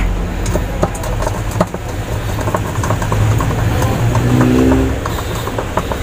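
Screwdriver driving in the centre screw of a washing machine's pulsator, with scattered light clicks, over a steady low hum.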